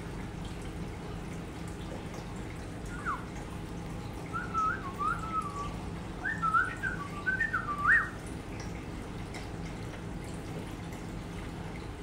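A few short whistled notes, each sliding up or down in pitch, in a loose run from about three to eight seconds in. Underneath is the steady trickle and hum of an aquarium.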